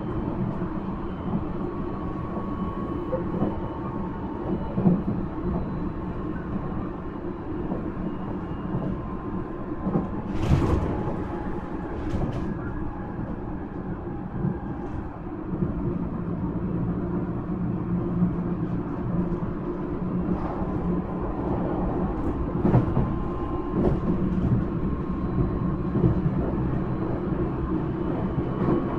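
Nankai 1000 series electric train running, heard from inside the car: a steady rumble with faint steady tones above it and several sharp knocks, getting a little louder about halfway through.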